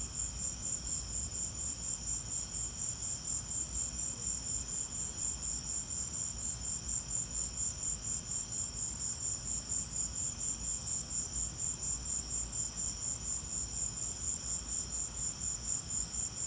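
Crickets chirping in a steady, even rhythm: a high-pitched pulsing trill that does not let up.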